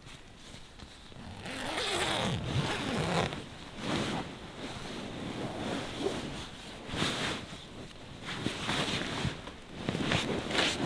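Sleeping bag zipper being pulled open in several rasping strokes, with the bag's shell rustling as it is pushed aside.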